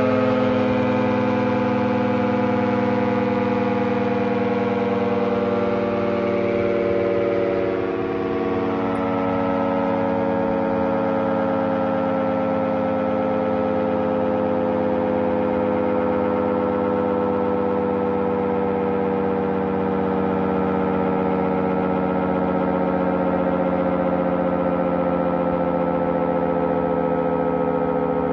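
Secomak GP8 air raid siren, run on 415 V, sounding a loud multi-tone note whose pitch slides slowly and steadily down: the rotor winding down from full speed.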